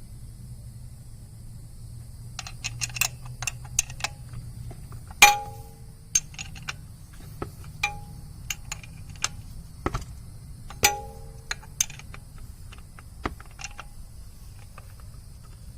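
Irregular metal clinks and taps of a wrench working on a motorcycle's oil filter. A few clinks ring briefly, and the loudest comes about five seconds in.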